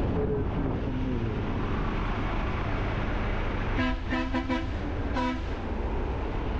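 Steady wind and engine noise from a motorcycle riding at road speed with a bus close alongside. About four seconds in, a vehicle horn sounds a quick run of short toots, then one more toot a moment later.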